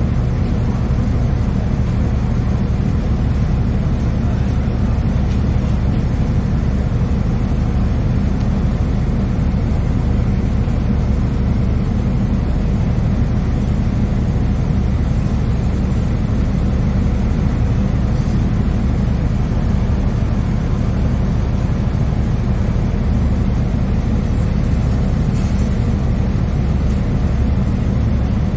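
Steady low hum of a 2009 NABI 40-LFW hybrid bus's Cummins ISB 6.7L diesel engine, heard from inside the passenger cabin, with road and cabin noise over it.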